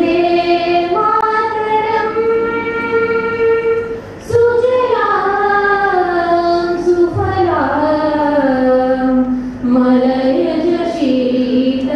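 A woman and girls singing a slow song together into a microphone, in long held notes that step from pitch to pitch.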